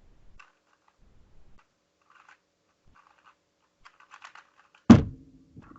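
MoYu WRM speedcube turning in fast clicking flurries during a roughly five-second speedsolve, with the quickest turning near the end. It ends with one loud slap about five seconds in, the hands coming down to stop the timer at the end of the solve.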